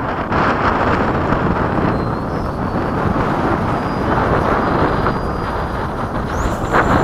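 FMS Hawk RC jet's 80mm electric ducted fan heard in flight: a dense rushing noise with a faint high whine that rises in pitch about six seconds in. Heavy wind buffeting on the microphone is mixed in.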